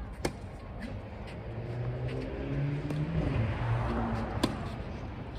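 A motor vehicle passing close by: its engine hum swells and fades, its pitch stepping up and down, with tyre noise loudest about three to four seconds in. Two sharp knocks, one just after the start and a louder one near the end.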